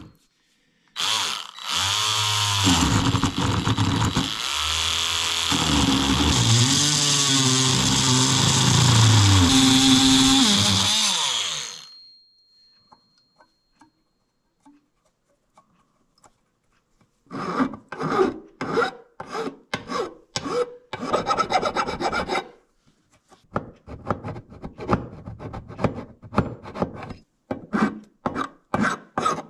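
Handheld rotary tool cutting into the aluminium mounting tab of a Honda GL1500 Gold Wing radiator for about ten seconds, its pitch sagging and recovering under load. After a pause, a hand file rasps across the cut edge in quick strokes, about two a second.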